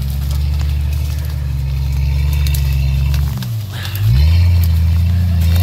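Off-road vehicle engine running under load through deep muddy ruts, its pitch steady, then dipping about three and a half seconds in and climbing back up.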